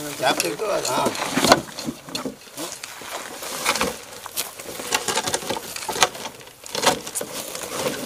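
Indistinct talk among a few people, with irregular crackling and rustling.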